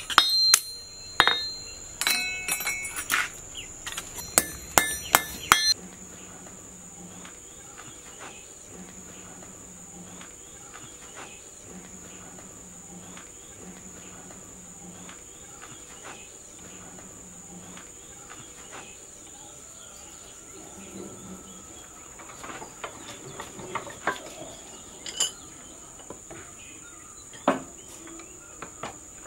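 A quick series of ringing hammer blows on a steel punch, driving a hole through the tang of a spring-steel knife blank on an anvil. The blows stop after about six seconds and leave a steady high drone of insects. A few scattered knocks and clunks follow near the end.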